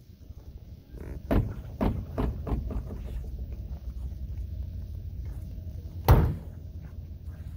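A 1966 Ford Mustang's driver's door slammed shut about six seconds in: one loud, sharp thud. A few seconds earlier comes a quick run of five or six lighter knocks.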